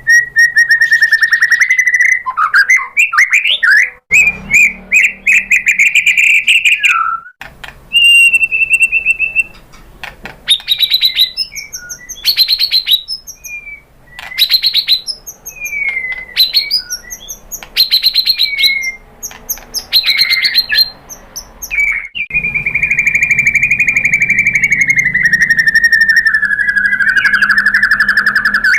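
White-rumped shama (murai batu) singing: a string of varied fast trills and whistled phrases, ending in one long rapid trill of about six seconds that slowly falls in pitch.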